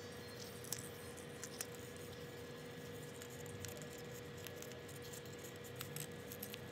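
Faint light clicks and rustles of a thin wire rod and folded paper curtains being handled, over a steady faint hum.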